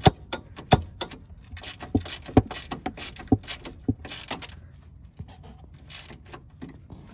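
Small socket ratchet clicking in quick, irregular runs as it winds in the anti-roll bar bush clamp bolt, drawing the bracket down. The clicks thin out over the last few seconds.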